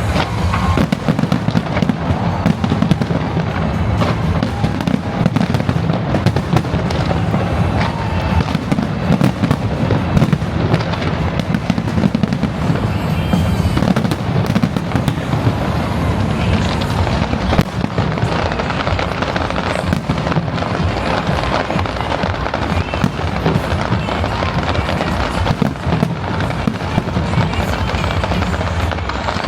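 Fireworks display: a dense, continuous barrage of overlapping bangs and crackling bursts.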